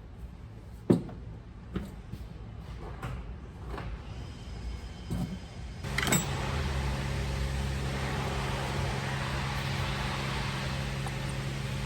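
A few scattered sharp clicks and knocks, then about six seconds in a machine starts abruptly and keeps running steadily with a low hum and a hiss.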